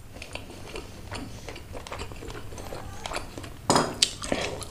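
Mouth chewing a bite of soft snapper-head meat dipped in gulai curry sauce: a run of small wet clicks and smacks, with a couple of louder smacks near the end.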